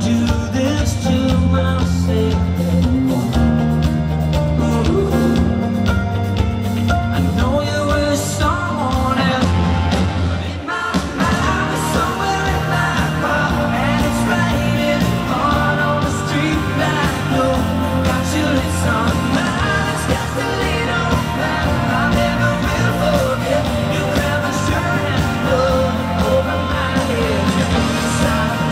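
Live country-rock band playing through a concert PA, a lead vocal over electric guitar, bass and drums, heard from the crowd. The bass cuts out for a moment about ten seconds in, then the band carries on.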